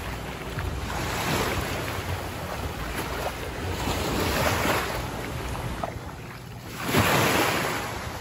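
Small waves washing up onto a sandy beach, swelling and fading every few seconds, the loudest near the end, with wind buffeting the microphone.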